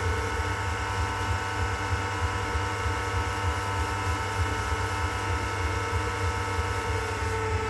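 Electric pottery wheel running steadily at speed, a low hum with a steady whine, while a lump of wet clay is being centered on it by hand.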